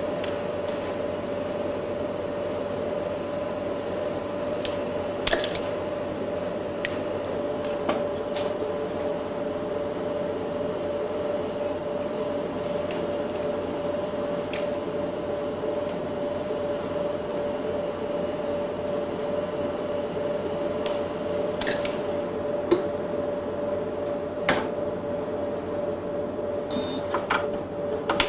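Steady hum of laboratory equipment, with scattered sharp clicks and a short high electronic beep near the end.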